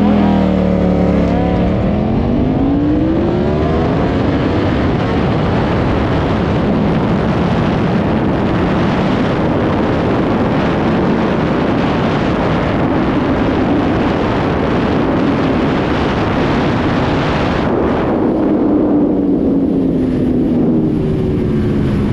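Ducati Panigale V4S sport bike at full throttle: its V4 engine climbs in pitch through the gears, then a dense rush of wind noise at top speed buries it. About eighteen seconds in, the wind rush drops away and the engine falls in pitch as the bike slows.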